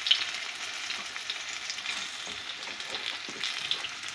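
Batter-coated sausage patties sizzling steadily in hot oil in a non-stick frying pan, with scattered light clicks of a metal fork against the pan as the patties are turned over; the sharpest click comes right at the start.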